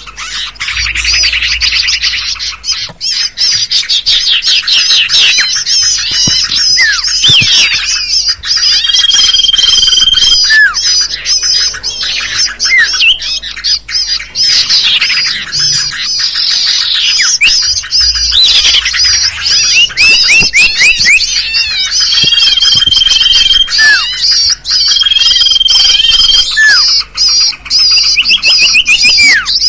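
Bird-lure (pikat) recording of noisy small-bird calls meant to draw in sirtu and common iora (cipoh). It is a dense, continuous mix of high chattering, rapid trills and short squeaky down-slurred notes. A long even whistle is held for about a second and a half three times, a third of the way in and twice more near the end.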